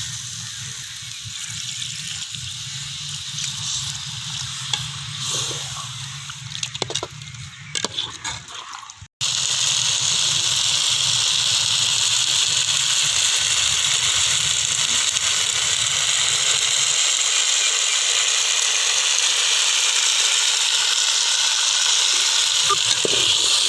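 Quail gravy in a pan: water going in and being stirred, with a few spoon clinks against the pan. After about nine seconds there is a sudden cut to a loud, steady sizzle that lasts to the end.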